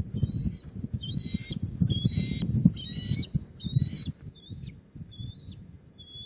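Bald eagles calling at the nest with high, thin chirps. A run of louder, harsher chitters comes about one to three seconds in, then single short chirps about a second apart, all over a low, uneven rumble.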